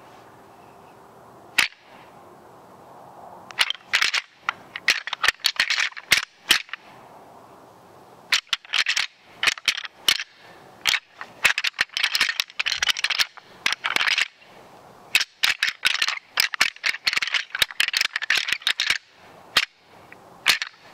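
Hard objects clacking and rattling together in quick bursts of sharp clicks, several seconds each, with short pauses between.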